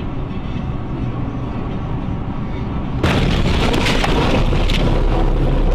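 Dashcam recording of vehicle road and engine noise, a steady low rumble. About three seconds in it jumps suddenly louder and hissier with wind noise on the microphone.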